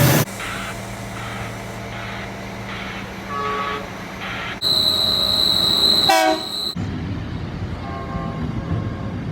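Short cut-together clips of trains: a steady low running hum, a brief horn toot about three and a half seconds in, and a steady high-pitched tone for about two seconds. A short, loud horn blast comes about six seconds in, then the clip cuts to rumbling train noise.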